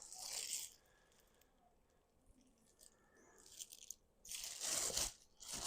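Faint crinkling and rustling of plastic packaging being handled, in two short spells: one right at the start and another about four and a half seconds in, with near quiet between.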